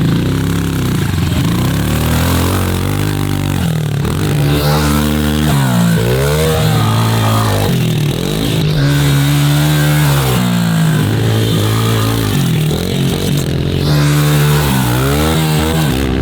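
Dirt bike engine being ridden hard, its pitch climbing and falling again and again as the throttle is opened and rolled off.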